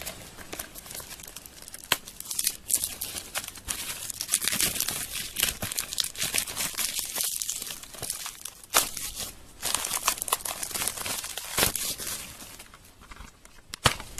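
Plastic wrapping being torn and peeled off a DVD case: a long run of crinkling and crackling with sharp snaps.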